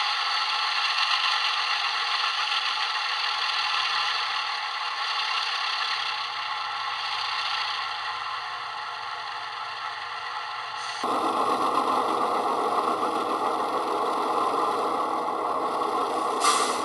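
Model diesel locomotive engine sound from a DCC sound decoder, played through a small speaker: a steady, rattly running sound with little bass. About eleven seconds in it turns noticeably fuller and louder in the low end. A short bright burst sounds near the end.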